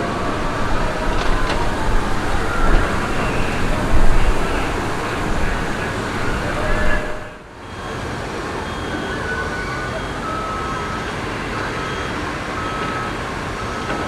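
Busy outdoor crowd ambience: many people talking in a steady background noise, with a low rumble like wind on the microphone in the first half. The sound dips sharply about seven seconds in, then the same crowd background carries on.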